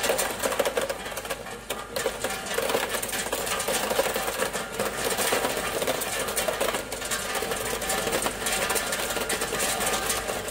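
Solid ice tubes from a 3-ton-per-day tube ice machine pouring into a plastic tub during harvest: a dense, continuous clatter of ice pieces striking the tub and each other.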